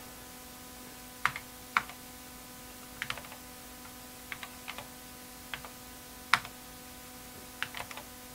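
Slow, uneven keystrokes on an Apple IIe computer keyboard as a short BASIC program is typed in, one stroke sharper than the rest past the middle, over a faint steady hum.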